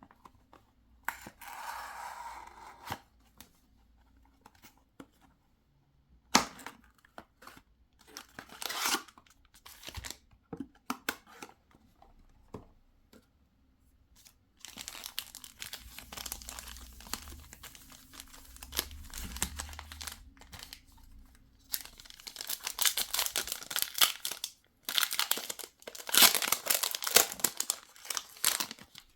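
Plastic and foil packaging of a Pokémon TCG booster bundle being torn open and crinkled by hand, in bursts: brief rustles at first, then longer stretches of crinkling, loudest near the end.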